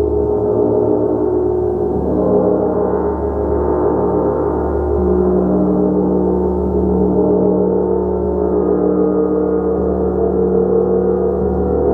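A gong played continuously, a steady sustained wash of many overlapping tones, with no single strike standing out.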